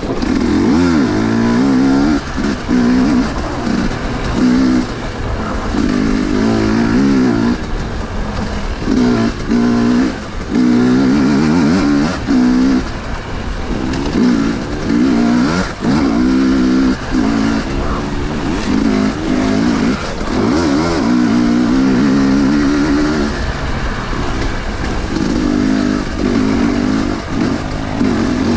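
Husqvarna TE 250i two-stroke enduro motorcycle engine under way, its revs rising and falling again and again as the throttle is opened and shut, with brief dips between bursts and a few steadier stretches near the end.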